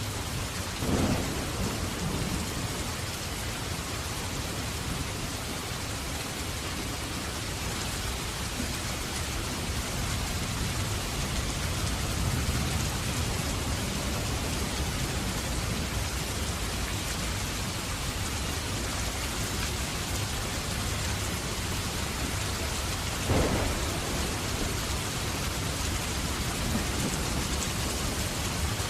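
Heavy rain falling steadily, with low thunder rumbling under it. Two sharp thunderclaps cut through, one about a second in and one about three-quarters of the way through.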